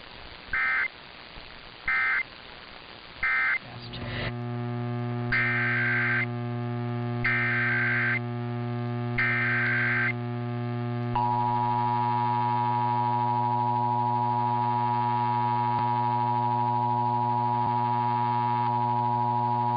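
Emergency Alert System tones: three short bursts of digital data ending one test (the end-of-message code). A steady low mains hum then comes in, with three longer digital header bursts about a second apart. About eleven seconds in comes the steady EAS attention tone, held on.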